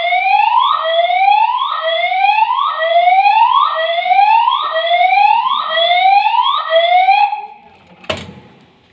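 Building fire alarm sounding its evacuation whoop tone: a loud, repeating rising sweep, about one every 0.8 seconds. It stops about seven seconds in, and a single knock follows about a second later.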